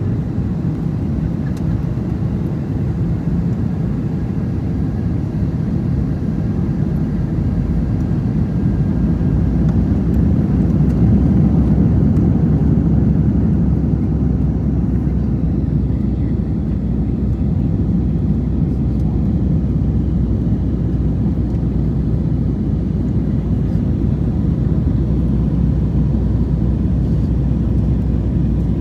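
Steady, deep cabin roar inside an Airbus A321 airliner on descent: engine and airflow noise, a little louder around the middle.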